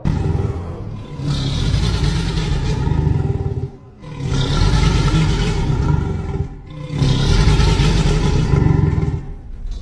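Reconstructed dinosaur vocalization sound effect: three long, deep calls of two to three seconds each, with a breathy hiss over a heavy low rumble and short pauses between them.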